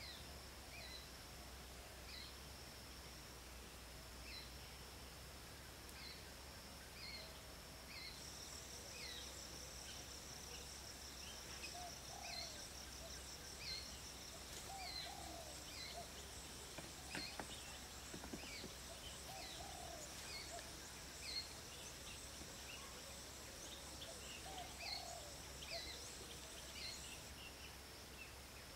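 Faint countryside ambience of insects and birds. A steady high insect drone runs throughout, a fast-pulsing insect trill joins it from about eight seconds in and stops near the end, and a bird repeats short, falling chirps every second or two, with a few faint knocks about halfway.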